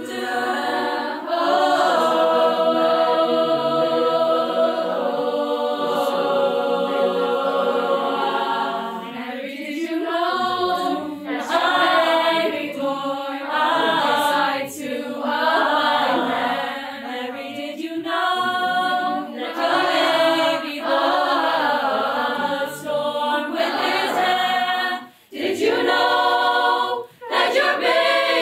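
Mixed choir of teenage voices singing: long held chords, then moving phrases broken by short pauses near the end.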